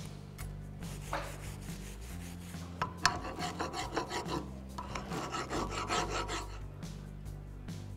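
Flat metal file rasping in repeated strokes across a rusty brake caliper bracket, taking surface rust off the pad abutment.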